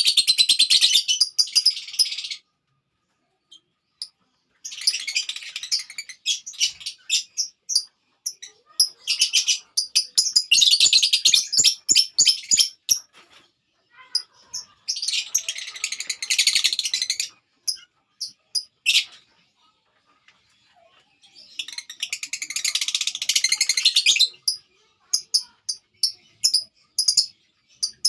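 Lovebirds chattering: bursts of rapid, high-pitched chirps lasting a few seconds each, with short pauses between them.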